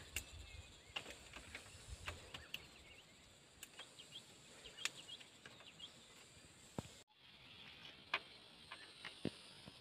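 Fresh bean pods being shelled by hand: faint, scattered small snaps and clicks as pods are split and beans and pods drop into a steel bowl, with a faint insect hum behind.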